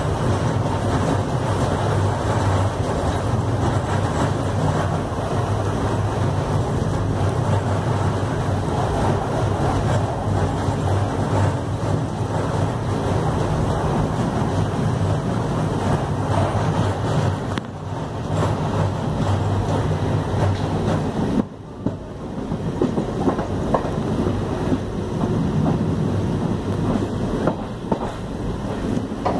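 Passenger express train pulling out of a station, heard from aboard a coach: a steady low rumble and hum of the running gear, with sharp wheel clicks over the rail joints coming in near the end as it gathers speed.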